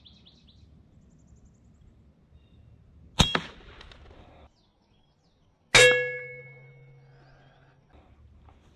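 Air rifle firing twice, about two and a half seconds apart: two sharp metallic cracks, the second ringing on briefly with a clang.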